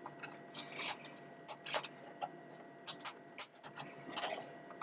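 Faint, irregular clicks and rustles of a SATA cable and plastic connectors being handled and pushed into place inside a desktop computer case.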